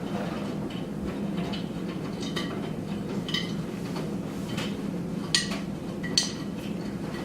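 Miele Softtronic W3825 washing machine between draining and spin: a steady low hum with several sharp metallic clinks, the two loudest a little over five and six seconds in.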